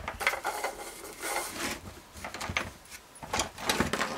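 Handling clatter as a PVC-pipe kayak trolley frame and its rubber-tyred wheels are moved and fitted onto the metal axle rod: scattered light knocks, clicks and short scrapes.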